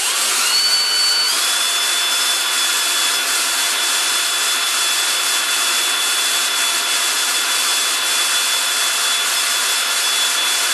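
Cordless drill running continuously, turning the EZ-Set torsion spring winder to wind a garage door torsion spring. Its motor whine steps up in pitch about a second in, then holds steady.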